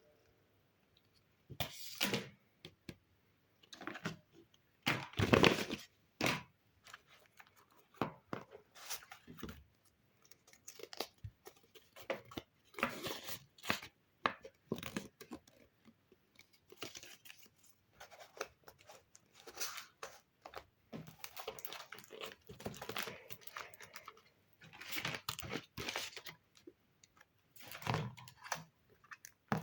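Paper being handled at close range: irregular bursts of crinkling, rustling and tearing, some of them loud.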